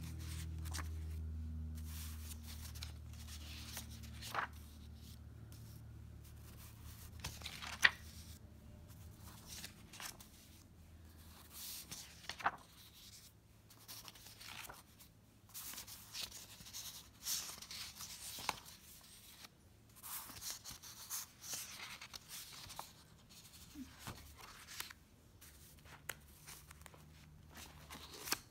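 Paper planner pages and inserts being handled and turned, rustling, with scattered sharp clicks and taps. A low steady hum sits underneath for the first several seconds and fades out.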